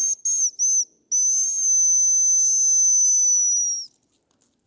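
Whistled hazel grouse call: a few short high thin notes, then one long drawn-out whistle that dips slightly at the end.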